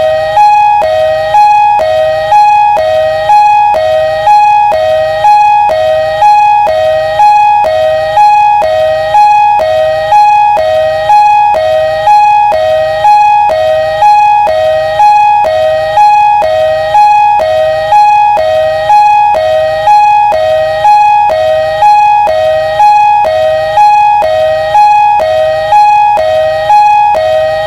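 Ambulance siren sounding a two-tone hi-lo pattern: a higher tone that slides up slightly, then a lower tone, alternating about once every 1.2 seconds without a break.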